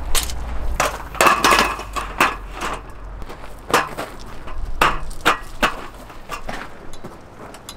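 Metal frame and legs of a folding luggage table being unfolded and set up: a series of separate clanks and clicks, a quick cluster about a second in and others spaced out after it.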